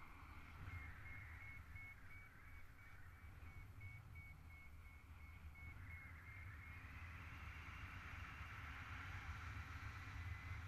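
Wind noise on the microphone in paraglider flight, a low steady rumble. A faint high-pitched beeping sounds over the first half.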